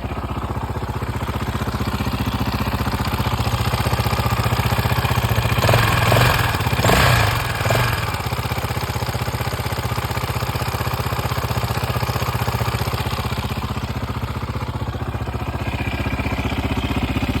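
KTM 660 SMC's single-cylinder engine with an Akrapovič full titanium exhaust idling, blipped about three times in quick succession around six to eight seconds in, then settling back to a steady idle.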